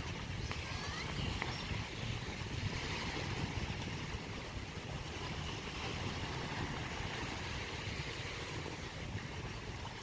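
Small waves washing onto a sandy beach, a steady hiss, with wind buffeting the microphone as a low, fluttering rumble.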